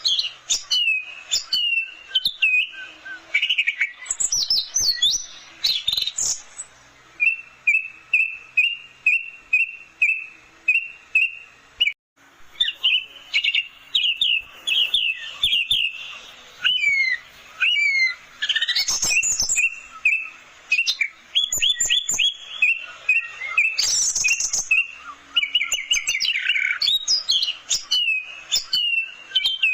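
Orange-headed thrush (anis merah) singing almost without pause: rapid runs of repeated whistled notes, fast trills and sweeping, varied phrases. There is a brief break about twelve seconds in.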